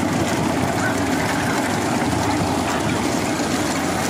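Steady rushing, rumbling vehicle noise.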